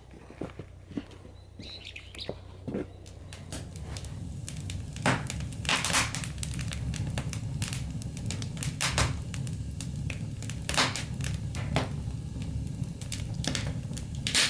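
Damp old timber burning in a homemade fireplace, crackling with irregular sharp pops and snaps. A low rumble builds about three or four seconds in and then holds.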